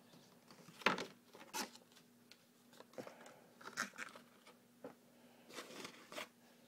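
Thin clear plastic blister tray from action-figure packaging being handled and pushed back into place, crinkling and crackling in irregular snaps, the sharpest about a second in and near four and six seconds.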